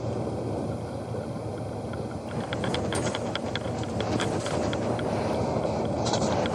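Steady engine and road noise inside a moving double-decker bus at cruising speed, with a string of light clicks and rattles from about two seconds in until near the end.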